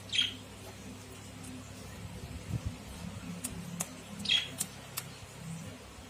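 A budgerigar gives two short, harsh squawks, one right at the start and one about four seconds in. A few sharp clicks of scissors snipping its wing feathers fall around the second squawk.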